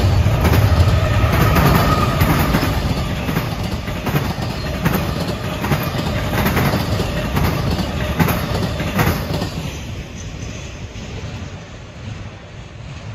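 A train rolling past, its wheels clacking over rail joints every second or so over a steady rumble; the sound fades away over the last few seconds.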